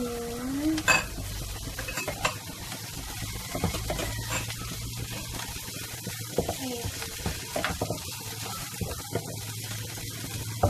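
Wooden spatula stirring and scraping chopped vegetables in a nonstick frying pan as they sizzle steadily, with irregular knocks of the spatula against the pan, the loudest about a second in.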